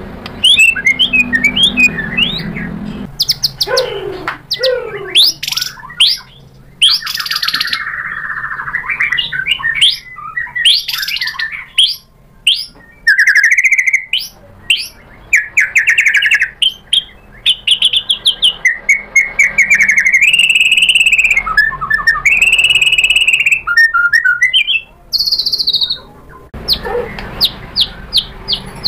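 White-rumped shama singing a long, varied song: phrases of fast repeated clicking notes, rich whistled notes and quick trills, one after another with short pauses between them.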